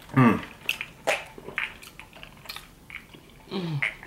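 Close-miked eating sounds: chewing, with small mouth smacks and short sharp ticks scattered through. A short falling hum from a voice comes at the start, and another comes near the end.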